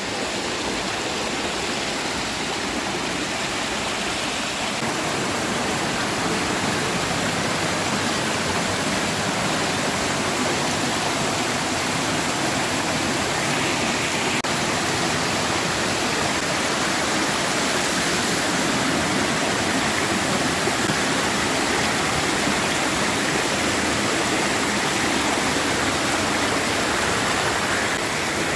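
Steady rush of fast-flowing water from the stream running through a narrow rock gorge.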